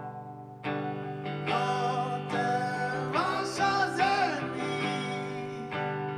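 Electric guitar ringing through an amplifier: a quiet held chord, then a louder chord struck just under a second in and left to ring. A wordless sung wail rises over it around the middle.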